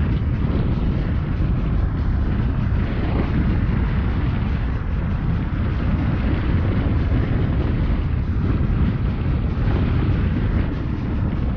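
A vehicle driving on an unpaved dirt road: a steady low rumble of engine and tyres on the dirt surface, with wind buffeting the microphone.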